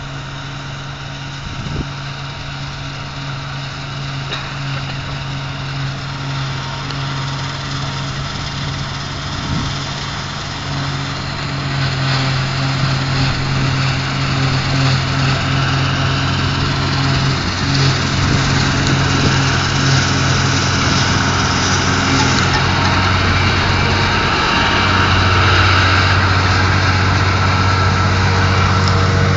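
Combine harvester's diesel engine and threshing machinery running steadily while it harvests grain, growing louder as it comes up to and passes close by.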